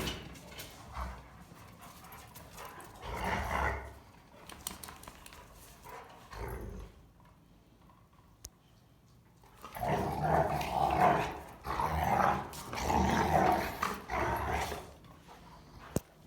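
Rottweilers growling while wrestling in play: a few short growls, a quiet pause of a few seconds, then a run of louder, repeated growls near the end.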